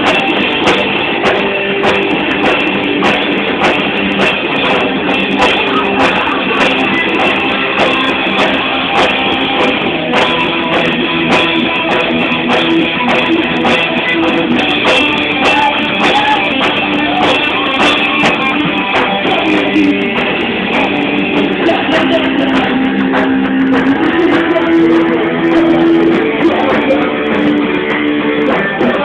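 Live rock band playing: strummed electric guitars over a drum kit, loud and steady throughout.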